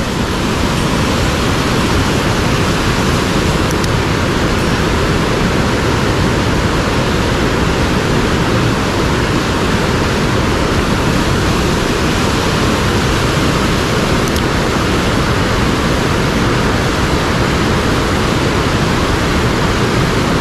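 Fast headwater mountain stream rushing, a loud, steady, even noise.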